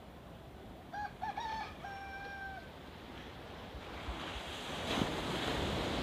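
A rooster crows once about a second in: a few short notes, then one long held note. Then a wave breaks and surges on the shore, loudest near the end.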